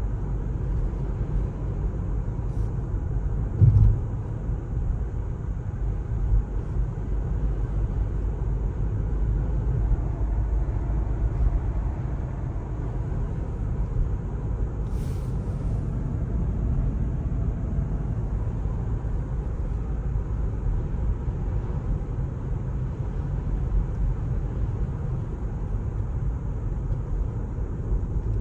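Inside a Mercedes-Benz W206 C-Class cruising at a steady speed: a steady low rumble of tyre and road noise, with one short thump a little under four seconds in.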